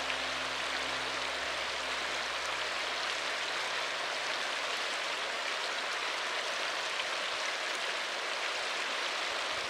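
Mountain river rapids rushing over boulders: a steady, even roar of white water.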